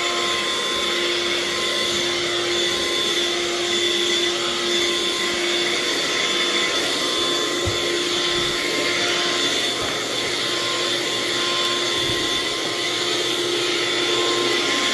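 Electric vacuum cleaner running steadily, a constant rush of air with a steady whine, as it vacuums stairs.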